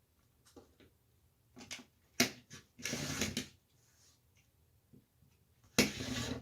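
Quilting tools being handled on a cutting table: a few sharp clicks and taps of an acrylic ruler being set down, and two short scraping strokes of a rotary cutter trimming a block against it.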